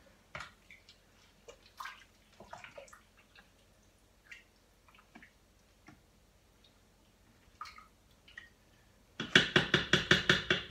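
A utensil scraping and stirring wet food in a metal cooker pot, with faint scattered clicks, then near the end a rapid run of about ten sharp taps, about seven a second, as it is knocked against the pot's rim to clear it.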